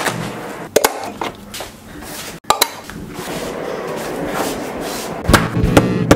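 Several separate sharp knocks, the loudest near the end, where a hammer comes down on a broken camera LCD screen lying on a marble table.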